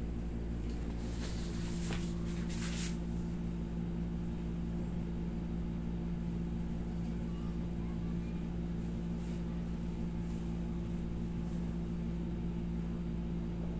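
A steady low mechanical hum at an even level, with a few faint brief rustles in the first few seconds.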